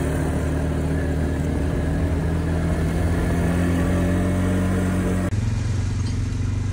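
ATV (quad bike) engine running steadily while being ridden. About five seconds in the sound switches abruptly to a lower, duller engine running.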